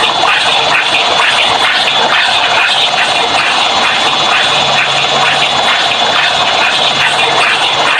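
LG washing machine spin cycle layered with edited-in sound effects: a loud, steady, dense roar with a fast, even pulse running through it.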